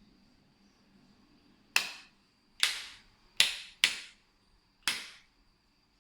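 National wall switches for the light and ventilation fan being clicked, five sharp clicks at uneven intervals over about three seconds, each with a short ringing tail.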